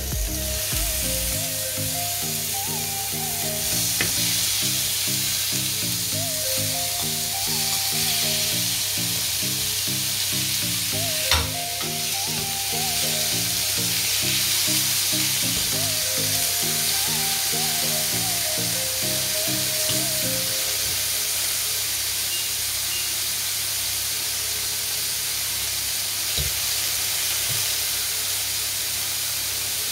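Raw chicken breast pieces sizzling as they fry in a hot ridged grill pan, stirred and spread with a fork, with a single sharp clack about eleven seconds in. Background music plays under the sizzling for the first twenty seconds, then stops.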